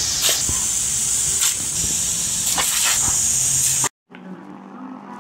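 Jet of water from a garden hose spray nozzle hissing steadily, with a few sharp snaps as a dog bites at the stream. It cuts off abruptly about four seconds in, and a small dog's low growl follows.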